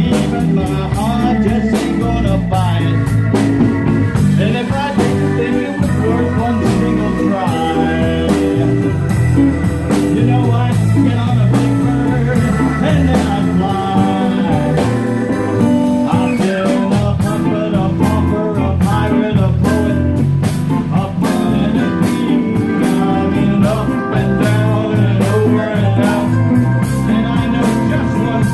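A live band plays, with a male singer on a handheld microphone backed by electric guitar, electric bass, keyboard and drums. The song keeps a steady beat.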